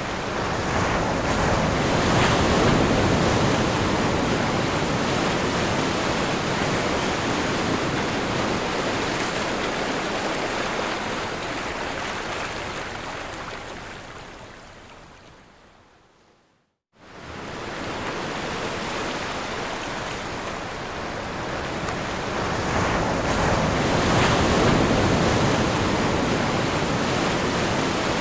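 Ocean surf: waves breaking on the shore as a continuous rushing wash that swells and ebbs. It fades away to a moment of silence a little past halfway, then returns and builds again.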